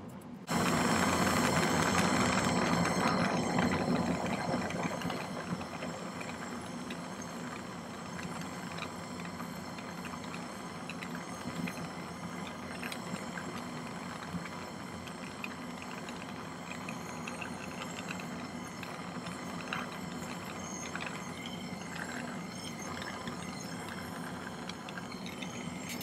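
Jeweler's soldering torch running with a steady hiss as it heats a sterling silver pendant to hard-solder it. The flame sound comes on suddenly about half a second in, is loudest for the first few seconds, then settles steadier and quieter.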